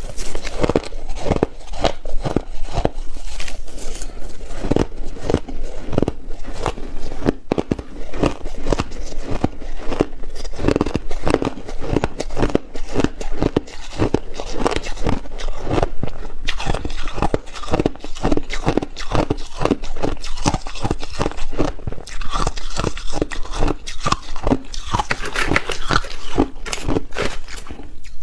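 Ice being bitten and chewed: a steady run of crisp crunches, several a second.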